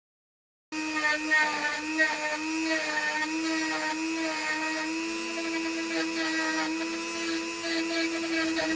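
Small high-speed rotary tool starting about a second in and running steadily with a high whine, with a few sharp ticks as it works the plastic, cutting the groove for the repair.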